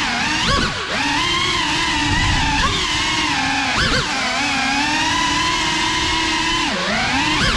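GEPRC Cinelog35 FPV cinewhoop drone's motors and propellers whining as it flies, the pitch rising and falling with the throttle and dipping sharply about four seconds in and again near the end.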